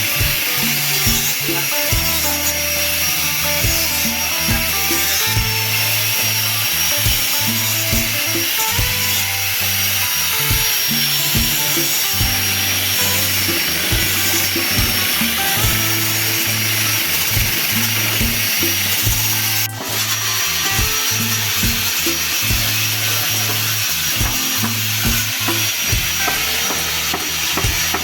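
Angle grinder with a coarse disc running steadily against wood, a hissing grind with a high whine, over background music. The sound briefly drops out about twenty seconds in.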